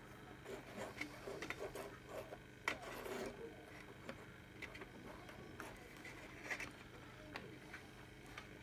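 Faint clicks and rustles of fingers handling thin wires and a small circuit board on a desk while soldering, with one sharper click about a third of the way in.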